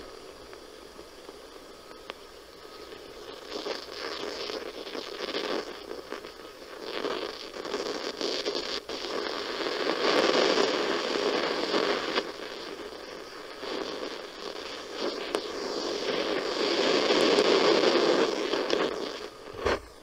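Ultrasonic refrigerant leak detector's output: a crackling static hiss as its probe is held at a leaking copper coil tube, the sign of refrigerant escaping from the leak. The hiss swells and fades, loudest around the middle and again near the end.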